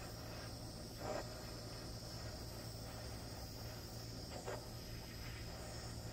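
Small handheld butane torch hissing steadily while its flame scorches the edges of carved wooden letters. Two faint short sounds break in, about a second in and again after four seconds.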